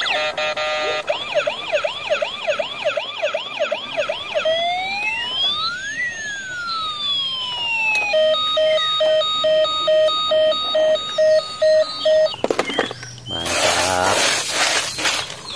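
Electronic ambulance siren sounds changing pattern: first a fast yelp of rapid rising sweeps, then a slow rising-and-falling wail, then steady on-off beeping. They stop about twelve seconds in, and a hand stirs wet gravel and water in a toy dump truck's bed.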